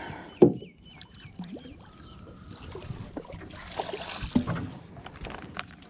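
A mulloway being landed in a landing net beside a boat: water splashing, then streaming and dripping off the net as it is lifted clear with the fish. There is a sharp knock about half a second in, the loudest sound, with scattered knocks and a few more hits around four seconds in.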